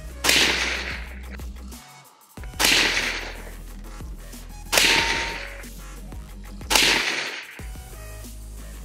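Four suppressed shots, about two seconds apart, from a Daniel Defense V7P AR-15 pistol in 300 Blackout with a GEMTECH ONE suppressor, firing Hornady American Gunner 125-grain supersonic hollow points. Each is a sharp report with a short fading tail.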